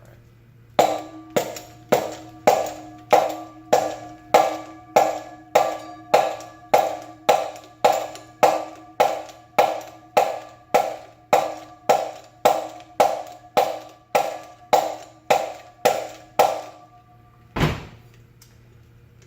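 Metal fan-motor parts being struck over and over with a makeshift mallet, about two dozen hits spaced a little over half a second apart, each one ringing briefly. One duller, lower knock follows near the end. The part being driven is stuck and not coming loose.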